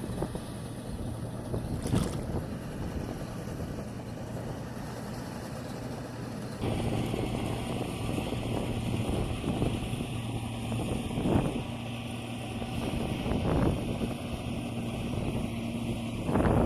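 A small engine running steadily with a low hum, with a sudden shift in the sound about six and a half seconds in and a few brief knocks.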